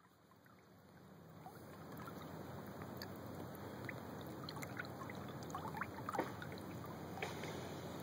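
Kayak gliding under an electric trolling motor: a steady low motor hum, with water trickling and lapping at the hull in small scattered splashes. It fades in over the first couple of seconds.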